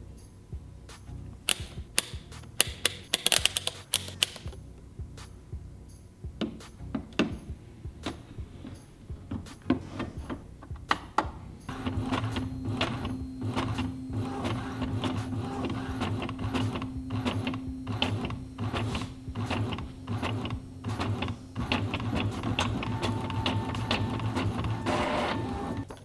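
Epson inkjet printer making a copy. It gives scattered clicks at first, then from about twelve seconds in it runs with a steady hum and a fast, regular clicking as the print head and paper feed work. The printed sheet feeds out near the end.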